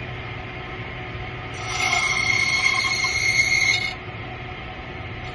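Key-cutting machine running, its cutter shaving metal off a car key for about two seconds from about a second and a half in, then easing back to the motor's hum. The key is being shaved down because it would not work in the lock.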